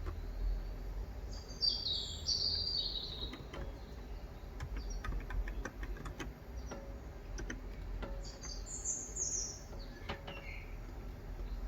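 Birds chirping in two bursts of quick high notes, about two seconds in and again around eight seconds, with a lower note just after. Underneath are scattered, irregular keystrokes on a Cox Endeavour electro-capacitive keyboard with 35 g switches.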